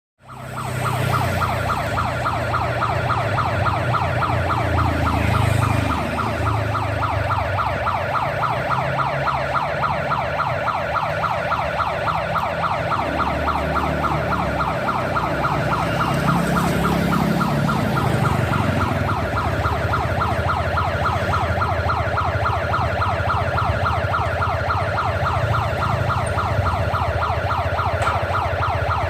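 Railway level-crossing warning siren with an ambulance-like tone, warbling rapidly and steadily, sounding its warning of an approaching train. Under it runs the low rumble of road traffic waiting at the crossing, swelling briefly twice.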